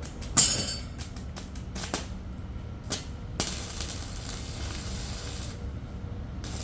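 Electric welding work: sharp clicks and a loud knock on metal, then a steady hiss from the welding arc lasting about two seconds, which returns near the end.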